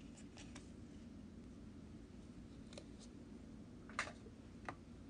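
Faint handling noises: a few soft clicks and rustles from a small sewn item and its elastic cord being handled, the sharpest about four seconds in.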